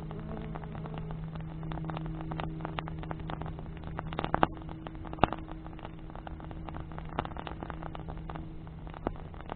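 Wood campfire crackling, with many small snaps and two louder pops about halfway through, over a steady low hum.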